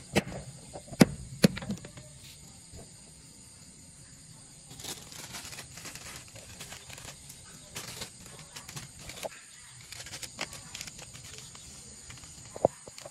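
Three sharp knocks of a knife on a wooden chopping block in the first second and a half. Then a soft rustling with small clicks as salt is shaken from a plastic bag over squid in a steel pot, and one more sharp knock near the end.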